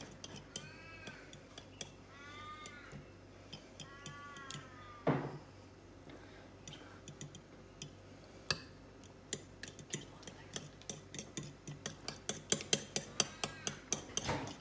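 A fork beating eggs in a ceramic bowl, clinking against the sides in quick ticks that grow faster and louder over the last few seconds. In the first few seconds an animal gives three short rising-and-falling calls, and a single knock sounds about five seconds in.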